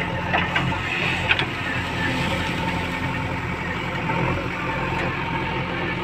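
JCB 3DX backhoe loader's diesel engine running steadily while the backhoe arm digs and lifts a bucket of soil. A few light knocks come within the first second and a half.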